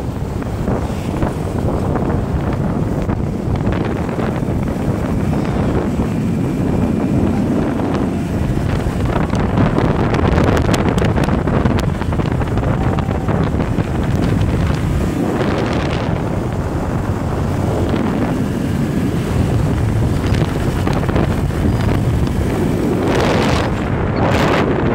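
Wind buffeting the microphone on a moving motor scooter, over the steady running of scooter engines in traffic. The rush swells louder twice, about two-thirds of the way through and near the end.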